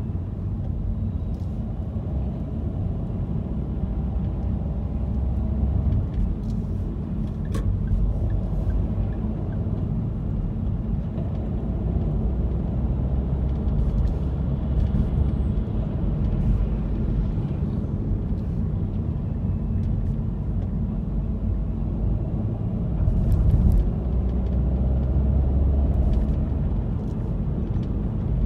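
Car driving through city traffic: a steady low rumble of engine and road noise, with a few faint clicks.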